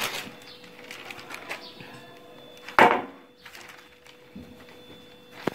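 Soft handling noises and one sharp knock a little under three seconds in, as a metal baking tray lined with baking paper is set down and handled; a smaller click near the end.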